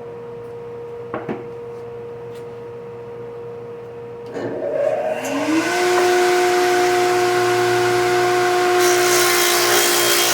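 Electric hand-hold cutting saw starting up about four seconds in, its pitch rising to a steady whine as the blade comes up to speed. Near the end it cuts into a rough-cut lumber hive body, adding a loud hiss of blade in wood.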